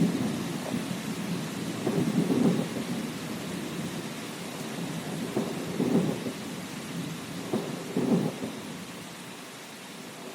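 Thunder rumbling over steady rain, with swells of rumble about two, six and eight seconds in, growing fainter near the end.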